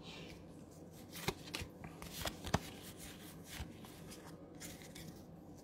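Pokémon trading cards being handled and slid against each other: soft rustling with a few short clicks, the loudest between one and three seconds in.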